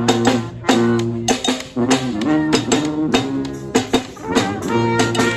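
Brass band playing live: several horns sounding held notes in harmony over a low bass line, with sharp drum hits through the music.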